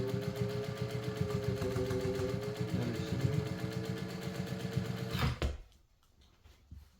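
Singer 1200 electric sewing machine stitching at steady speed: motor whine over a rapid needle rattle, stopping abruptly about five seconds in.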